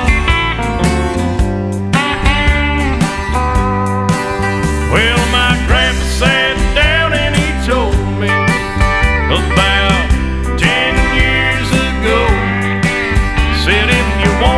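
Country music in an instrumental passage, with steel guitar sliding and bending notes over a steady bass and rhythm.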